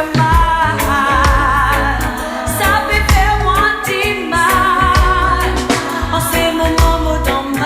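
Pop song: a sung vocal line with vibrato over a drum beat and a heavy bass line.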